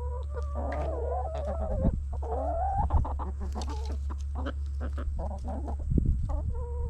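Several hens clucking and calling over one another, with scattered pecking clicks and a steady low hum underneath.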